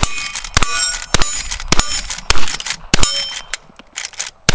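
Lever-action rifle firing a rapid string of about six shots, roughly every half second, each followed by the ringing clang of a steel plate being hit. A few fainter clicks of the lever being worked come near the end.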